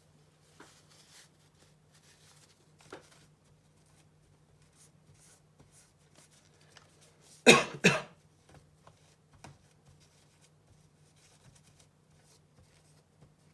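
A person coughing, a quick double cough about halfway through, amid faint scattered clicks of handling over a steady low hum.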